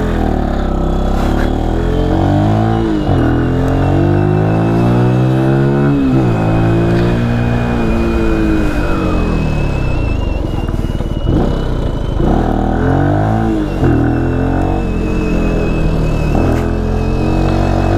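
Benelli TNT 125's single-cylinder engine accelerating through the gears, its pitch climbing and then dropping at each shift several times. Over it runs a faint, steady, slightly wavering high whistle, a whistling noise the rider cannot place and first took for his brakes.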